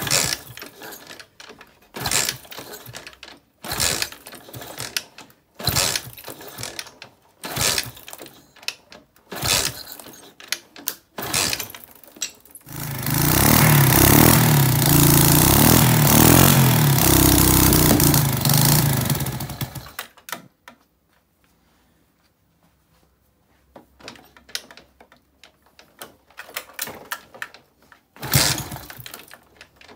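A freshly rebuilt Honda-clone four-stroke moped engine, bored out to 125 cc, being kick-started over and over, about one kick every two seconds; it is slow to fire because the carburettor has to draw fuel first. About 13 seconds in it catches and runs steadily for some seven seconds, then stops suddenly, and a few lighter knocks follow near the end.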